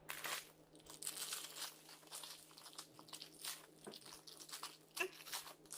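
Plastic packaging crinkling and rustling in irregular crackles as an item is handled and unwrapped.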